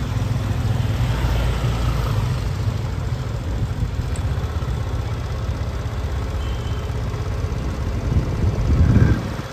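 Steady low rumble of a motor vehicle engine, swelling louder briefly near the end.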